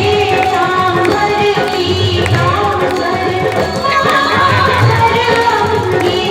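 Loud recorded Indian song, singing over a steady drum beat, played at high volume.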